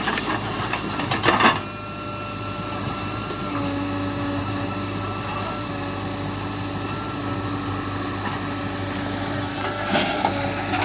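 Loud, steady high-pitched insect buzz of crickets or cicadas over the steady hum of a JCB 3DX backhoe loader's diesel engine running. A short clattering knock comes about a second and a half in, and another near the end.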